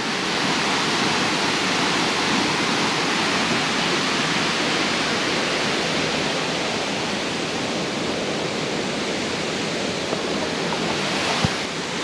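Maral waterfall rushing steadily, falling water with no let-up. A short click sounds near the end.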